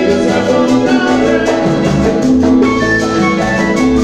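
Live Latin tropical dance band playing at a steady loud level, with congas, keyboard and guitar.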